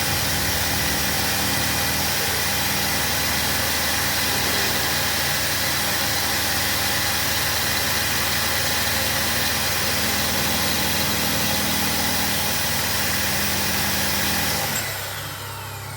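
Renault Logan engine idling steadily while its reassembled alternator, excited through a test lamp, is checked for charging. The sound drops away abruptly near the end, leaving a lower hum.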